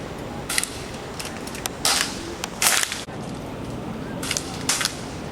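Air rifles firing pellets: about five sharp shots at irregular intervals, with a few fainter ones between them.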